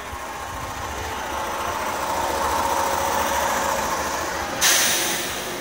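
485-700 series 'Resort Yamadori' electric train pulling away from the platform, its traction motors humming, rising slightly in pitch and growing louder as it gathers speed. About four and a half seconds in a sudden loud hiss cuts in for almost a second.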